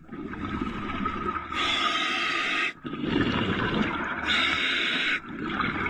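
A diver breathing underwater through a regulator fed by a surface compressor hose. There are two hissing inhales, about one and a half seconds in and again around four seconds in, each followed by a rush of exhaled bubbles.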